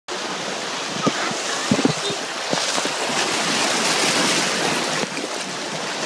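Turbulent white water rushing and churning through an artificial water-park river channel, with a few short splashes about one to two seconds in.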